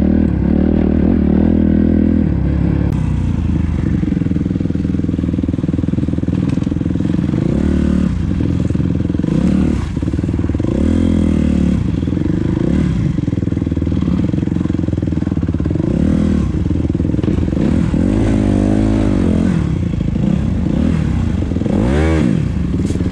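Dirt bike engine running under load, its revs rising and falling over and over as the throttle is worked.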